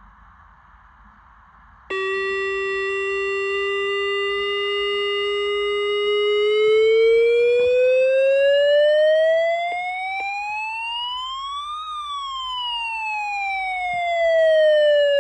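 Electronic alert siren for an Emergency Alert System weekly test. After faint hiss, it switches on abruptly about two seconds in, holds a low steady pitch for several seconds, then rises in pitch to a peak and glides back down.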